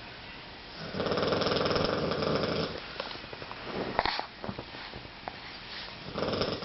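Snoring: one long, loud, rattling snore of about two seconds, then a quieter stretch with a few small clicks and snuffles, then the next snore starting near the end.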